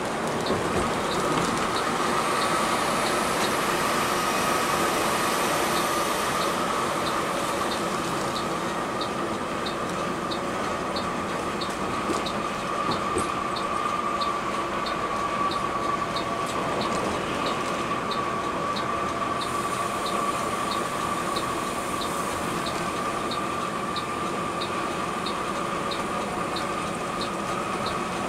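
Steady running noise of a Mercedes-Benz 1626 coach on the move: engine and road drone with a constant whine, and a faint regular tick somewhat more than once a second.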